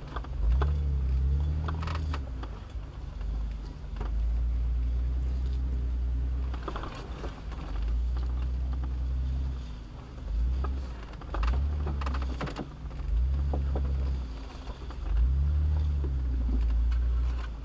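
An off-road rig's engine pulls in low gear, revving up and easing off again and again as it crawls over rock, with a few brief knocks from the rig along the way.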